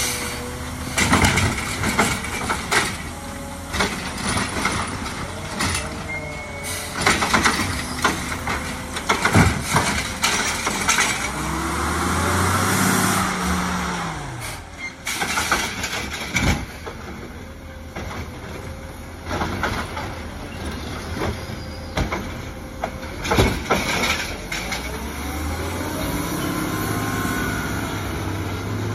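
Automated side-loader garbage truck collecting curbside carts: repeated clanks and bangs as the hydraulic arm grabs, lifts and empties the carts. Twice the diesel engine revs up and falls back as it drives the hydraulics.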